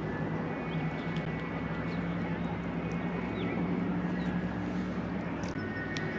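Steady wind noise on the microphone over a low steady hum, with a few faint clicks scattered through it.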